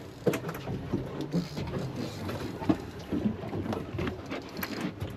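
Saltwater fishing reel being cranked against a heavy grouper on a hard-bent rod, giving a busy, irregular mechanical clicking and rattling.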